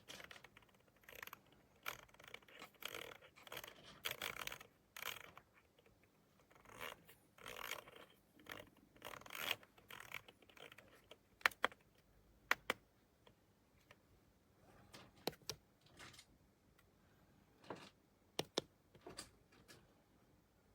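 Hands handling objects: irregular bursts of scraping and rustling, then a scattering of sharp clicks in the second half.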